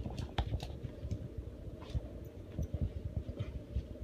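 Wolf-hybrid dog chewing and tearing at a plush toy: irregular soft low thumps with a few short sharper crackles.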